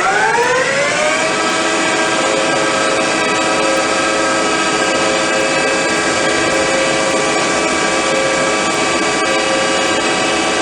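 ECL 360 CNC lathe spindle speeding up, its whine rising in pitch over the first second or so, then running steadily at speed.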